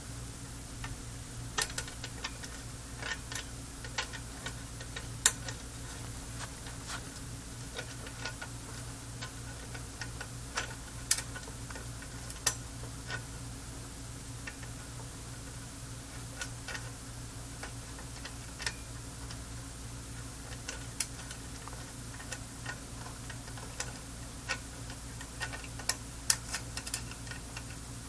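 Irregular small clicks and light metallic taps of a nut and small hardware being fiddled and threaded onto a screw inside an amplifier chassis, over a steady low hum.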